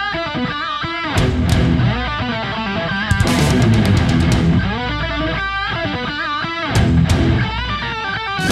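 Rock music with a prominent guitar playing wavering lead lines over a steady bass.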